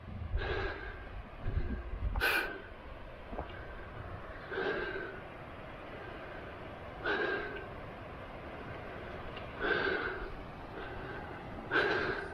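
A person's breathing close to the microphone, one breath about every two and a half seconds over a faint steady hiss. Wind rumbles on the microphone in the first couple of seconds.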